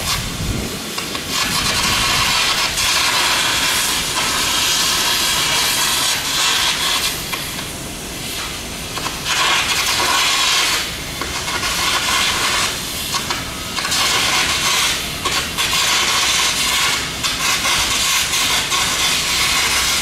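Arc welding on structural steel: a loud, steady hiss that drops away briefly several times in the second half.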